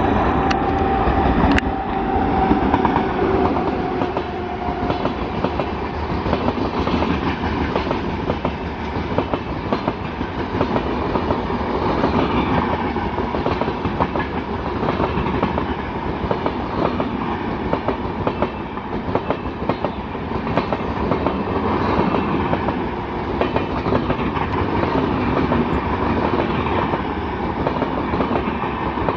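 A passenger train's LHB coaches passing close at speed: a continuous rapid clickety-clack of wheels over rail joints on top of a steady rushing rumble. A horn note from the WAP-7 electric locomotive trails off in the first few seconds.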